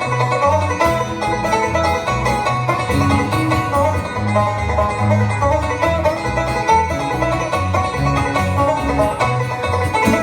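Live bluegrass band playing an instrumental passage with no singing: rapid banjo picking and guitar over a steadily stepping bass line.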